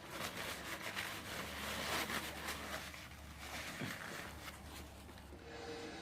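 Close-up crunching and rustling, densest in the first three seconds and quieter after: someone eating crispy fried chicken wings.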